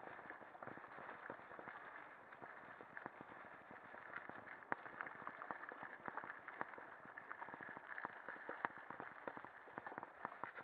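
Lapierre mountain bike rattling down a rough forest trail: a steady rush of tyres on dirt and dry leaves, with many small clicks and knocks from the bike jolting over the ground.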